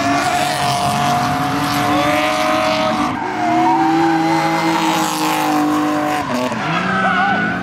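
Drift car engine held high in the revs while the tyres squeal through a slide, its pitch dropping about six seconds in and climbing again near the end.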